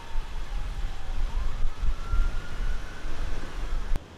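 Strong wind buffeting the microphone with a rumble, under the wail of an emergency-vehicle siren that slowly falls and rises again. The sound cuts off abruptly about four seconds in.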